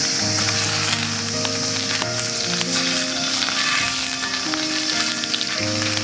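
Hamburger patty sizzling and spitting in hot oil in an iron frying pan, with a steady crackle of small pops. Soft background music with held notes plays underneath.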